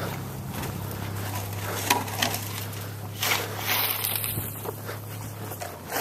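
Footsteps crunching in snow, a few sharp crunches over a steady low motor hum that fades out near the end.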